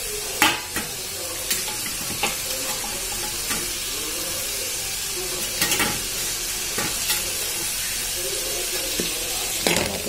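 Diced vegetables and potato sizzling in hot oil in a metal pan, stirred with a steel spoon that knocks and scrapes against the pan now and then.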